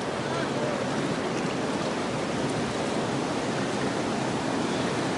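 Steady rush of fast-flowing river water below a dam.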